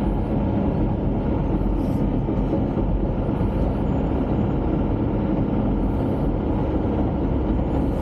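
Bulldozer's diesel engine running steadily as the machine travels, heard from inside the cab.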